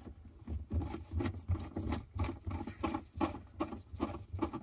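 A screwdriver tightening wires into the screw terminals of a solar charge controller: a run of small, irregular clicks and knocks, about three a second.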